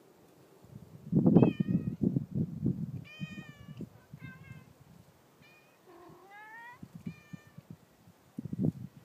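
A cat meowing repeatedly: about six short meows, one rising in pitch around the middle. Bursts of low rumble on the microphone, loudest in the first few seconds, come and go beneath them.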